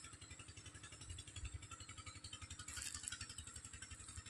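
A small engine running steadily with a fast, even low beat.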